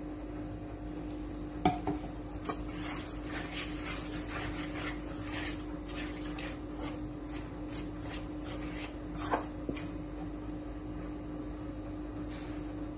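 Chopsticks stirring and scraping through glutinous rice flour in a stainless steel bowl, in a run of scratchy strokes, with two sharp knocks against the bowl, about two seconds in and about nine seconds in. A steady low hum runs underneath.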